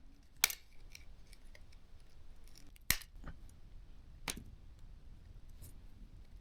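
Faint clicks and ticks of metal tweezers picking at glue on the drone's plastic housing, with three sharper clicks about half a second, three seconds and four seconds in.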